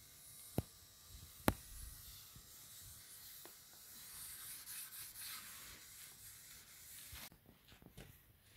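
Faint, steady rubbing of a cloth working linseed oil into the end grain of a wooden cutting board. Two sharp clicks come early, about half a second and a second and a half in, and are the loudest sounds. The rubbing stops about seven seconds in.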